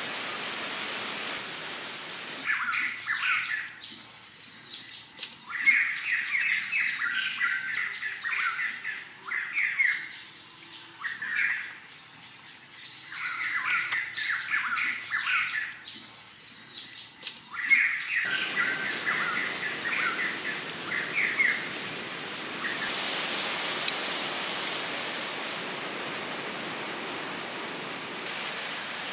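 Birds chirping and singing in quick repeated bursts through most of the clip, over a steady hiss that grows more noticeable once the song stops near the end.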